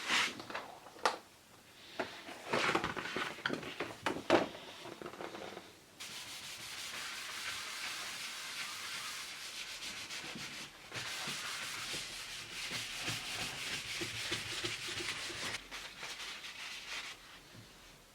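Hand rubbing or sanding on an oak cutting board. First come a few separate scraping strokes, then steady back-and-forth rubbing that stops near the end.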